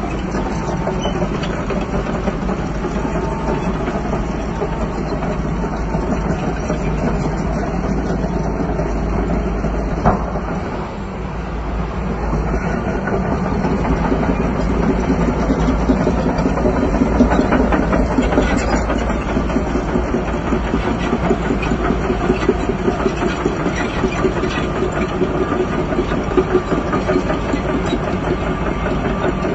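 Heavy diesel bulldozer engine running under load, with tracks clanking. There is a sharp knock about ten seconds in, and the engine works harder from about twelve seconds on.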